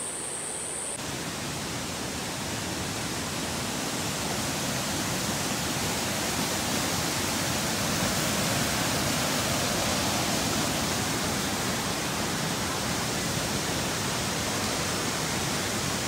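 Rainforest creek water rushing and cascading over boulders: a steady, full-range rush of white water that starts suddenly about a second in.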